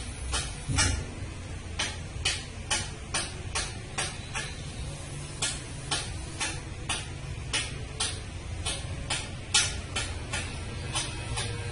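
A steady run of sharp clicks, about two to three a second, over a low, steady rumble.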